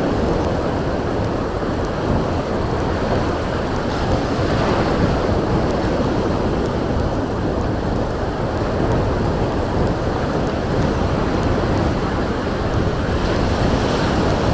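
Strong wind blowing across the microphone, mixed with waves breaking on the shore: a loud, steady, rumbling noise with no let-up.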